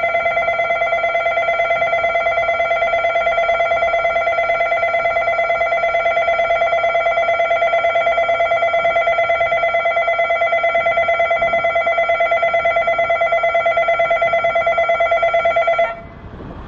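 Station departure bell ringing steadily with a fast trill, cutting off suddenly near the end.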